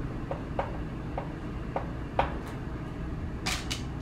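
Chalk tapping on a blackboard while writing: a run of short, soft ticks, then a couple of sharper clicks near the end, over a steady low room hum.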